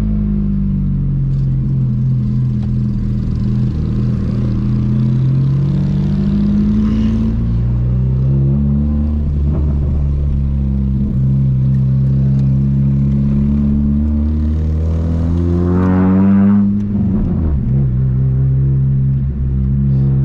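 1999 VW Gol G2's 1.0 8V four-cylinder engine running through a straight-through exhaust with a 4-inch HKS muffler, its note rising and falling with the throttle while driving. A hard pull climbs to the loudest point about sixteen seconds in, then the note drops suddenly as the throttle is released.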